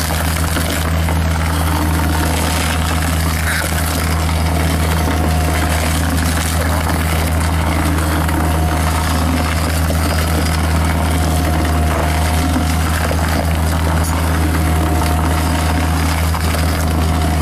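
Tracked hydraulic excavator's diesel engine running as a steady low drone while it drives a hydraulic stump-removing attachment.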